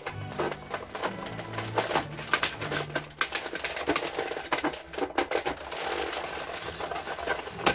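Hand-cranked Cuttlebug die-cutting and embossing machine being turned, with irregular clicks from its crank and rollers as the plate stack with abrasive cloth passes through. Background music with low held notes plays underneath.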